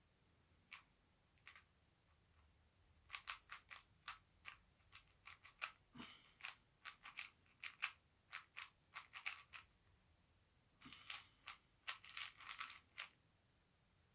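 Faint plastic clicking of a 4x4 puzzle cube's layers being turned by hand, in quick irregular runs of turns broken by short pauses.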